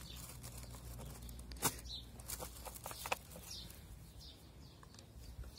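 Quiet background with scattered faint clicks and taps, a faint low hum in the first second or so, and a few faint high bird chirps.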